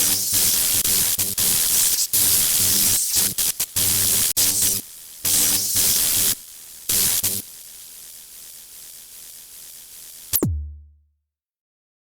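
Electronic intro music built from loud stop-start bursts of white-noise static over a low buzz and drum machine, ending in a single low boom and then cutting to silence.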